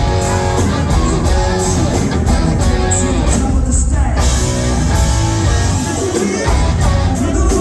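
Live rock band playing loud through a club PA: distorted electric guitar, bass and drums, with some singing, recorded from the crowd.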